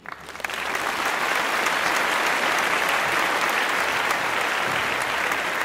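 Applause: many hands clapping, swelling in over the first half-second and then holding steady.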